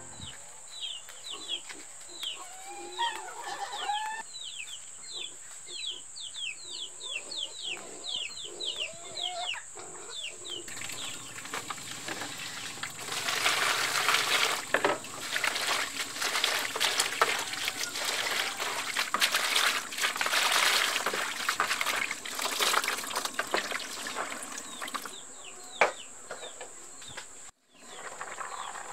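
Birds chirping rapidly, with a chicken clucking, for the first several seconds. Then water pours and splashes into a basin of leafy greens as they are washed, and this is the loudest sound.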